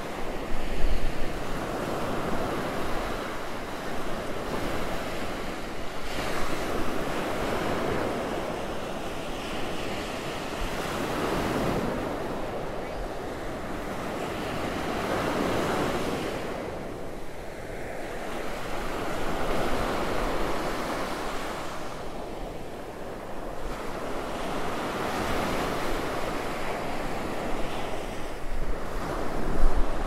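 Ocean surf breaking and washing up a sandy beach, swelling and falling back every few seconds, with some low wind rumble on the microphone now and then.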